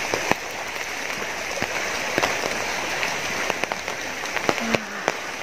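Steady rain, with many scattered sharp taps of raindrops striking an umbrella held over the camera.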